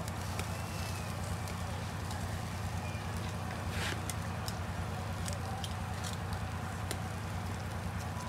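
Charcoal fire crackling under bushmeat roasting on a wire grill, with scattered sharp pops of dripping juices, over a steady low rumble.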